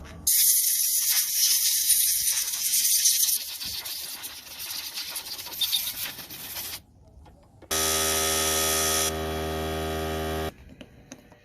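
A long, loud spray hiss lasting about six seconds, easing off about halfway through, as while cleaning the snowblower's carburetor. It is followed by a steady buzzing tone that lasts about three seconds.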